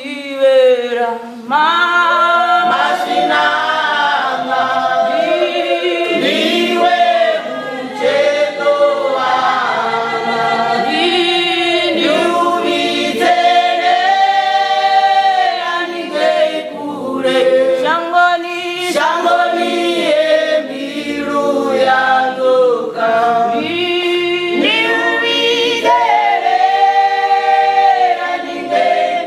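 Church choir singing a gospel song a cappella in Tshivenda, many voices blending in harmony without instruments.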